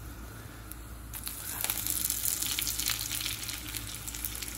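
Tadka of dried red chillies and dal sizzling in hot oil, turning to a much louder crackling sizzle from about a second in as fresh curry leaves hit the oil and spit.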